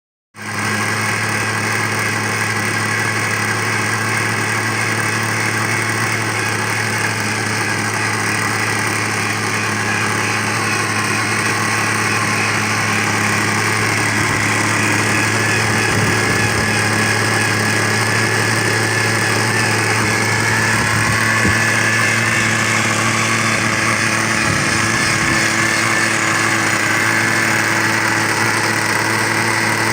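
Engine of a Schlüter Cobra radio-controlled model helicopter running steadily at an even pitch, with a higher whine above it.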